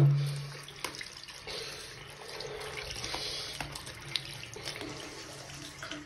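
Tap water running into a sink and splashing over a small green parrot held under the stream, with a few faint sharp clicks.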